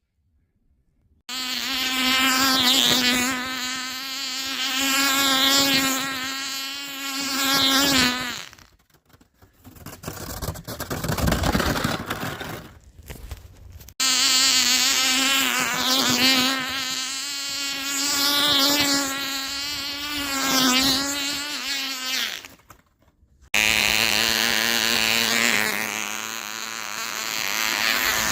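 Cox .049 two-stroke glow engine driving a model airboat at full throttle: a high buzzing whine whose pitch wavers up and down as the boat runs about, in several clips that cut off abruptly.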